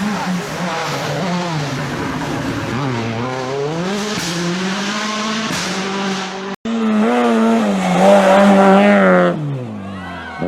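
Rally car engine at full throttle, revving up and dropping back again and again through gear changes. The sound cuts out abruptly about six and a half seconds in, then another car runs louder before its engine note falls away near the end.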